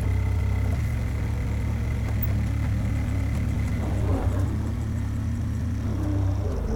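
Small New Holland skid steer's engine running steadily with a low, even drone.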